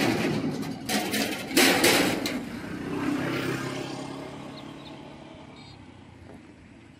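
A motor vehicle passing close by: a loud rush that swells twice in the first two seconds, then its engine fading steadily away.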